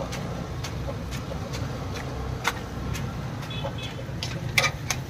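Battered cauliflower deep-frying in a kadai of hot oil, sizzling, with a wire spider strainer clinking sharply against the iron pan several times, mostly near the end, over a steady low rumble.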